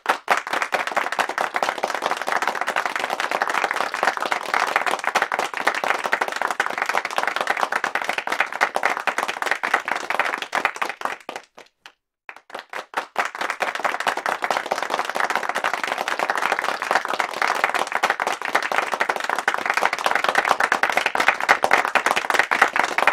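Applause: many hands clapping in a dense, steady patter, breaking off for about a second halfway through and then starting up again.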